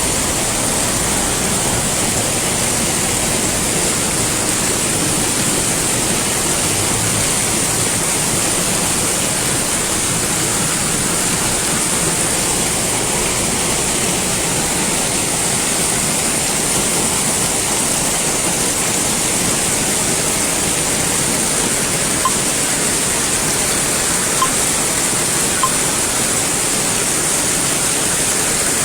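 Heavy rain pouring steadily, a dense even hiss, with a few faint ticks in the last several seconds.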